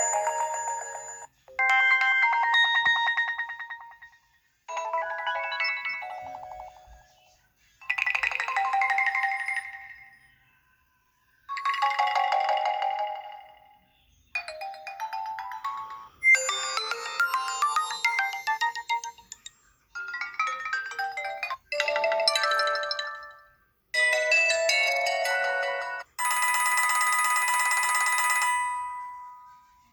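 HTC phone ringtones played one after another: about a dozen short electronic melodies of two to three seconds each, many fading out, with brief gaps between them.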